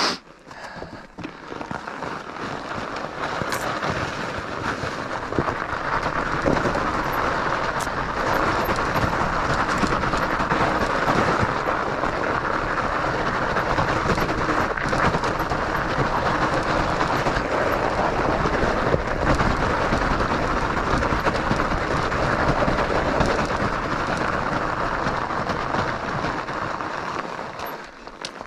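Studded fat-bike tires rolling and rattling down an icy, snowy trail: a steady rushing, clattering noise that builds over the first few seconds, holds, and stops suddenly near the end.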